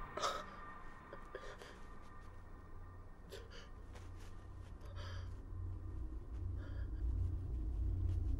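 A low rumbling drone that slowly swells louder, with a few short, sharp breaths from a man trying to keep quiet.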